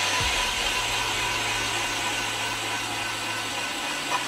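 Powered ice auger drilling through lake ice: a steady motor hum with the grinding hiss of the blades cutting ice, the pitch sagging slightly near the end as it bores deeper.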